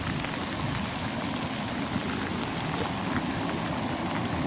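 Rain-swollen creek water being drawn into a culvert with a steady, weird sucking noise. Rain is falling, with scattered drop ticks.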